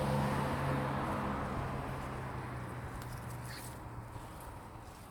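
A motor vehicle passing and fading into the distance: a low engine hum with a rushing noise that dies away steadily, with a couple of faint clicks a little after halfway.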